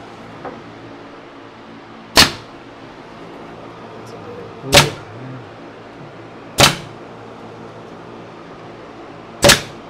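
Nail gun driving nails into a chestnut-oak cabinet box: four sharp shots, about two to three seconds apart, with a steady low hum underneath.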